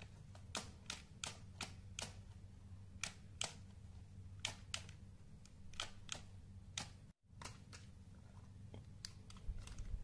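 Irregular sharp clicks and taps of hard plastic Lego Technic parts and a remote being handled, over a steady low hum.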